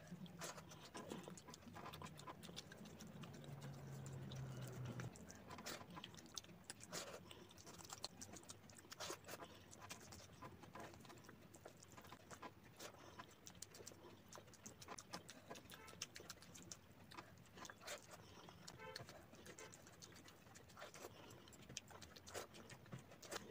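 Faint, irregular clicks and taps of fingers scooping and scraping rice off a metal nonstick pan while eating by hand, mixed with chewing. There is a low hum during the first few seconds.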